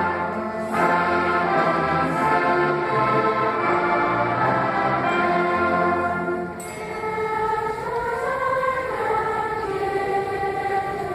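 Large school choir singing held notes with instrumental accompaniment. About two-thirds of the way in the texture thins and the voices begin to slide in pitch.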